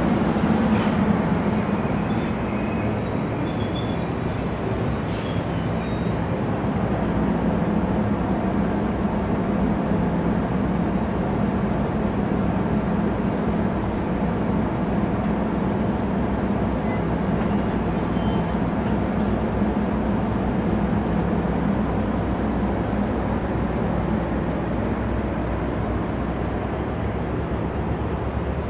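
NJ Transit multilevel commuter train at a station platform: a steady, dense rumble and hum of the train's equipment throughout. For the first few seconds a high, steady squeal sounds over it, then stops.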